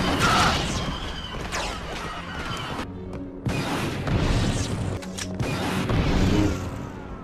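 Video game combat sounds: rapid blaster shots and explosions over background music, with a brief break about three seconds in.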